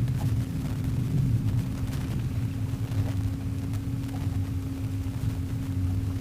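A boat motor running steadily, a low rumble with one steady hum held throughout, and a few faint ticks over it.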